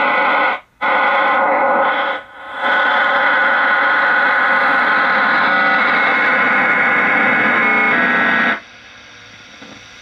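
A shortwave number station signal coming through the speaker of a 1937 Philco 37-630 tube radio: a steady, distorted tone with static. It drops out briefly twice in the first few seconds and cuts off abruptly about eight and a half seconds in.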